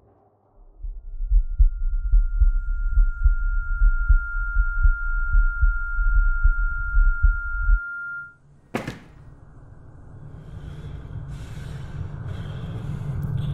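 Fast, pounding heartbeat sound effect under a steady high-pitched ringing tone, both cutting off about eight seconds in. Then a single sharp hit, followed by a low rumble that slowly grows louder.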